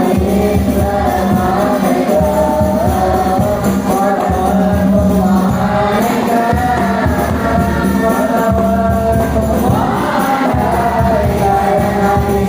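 Devotional song in praise of the Prophet, a child's voice singing a melody with a backing choir and a steady beat.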